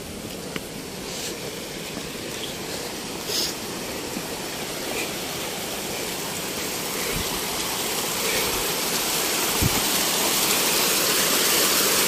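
Rushing mountain water, a steady hiss that grows gradually louder.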